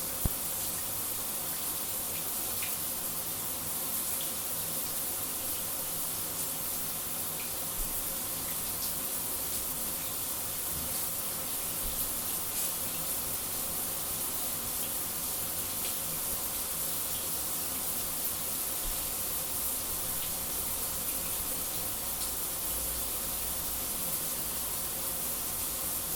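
Shower running: a steady, even hiss of falling water, with one sharp tick just after the start.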